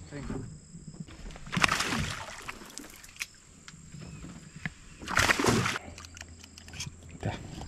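A hooked tararira (trahira) splashing at the water's surface, two splashes about three and a half seconds apart.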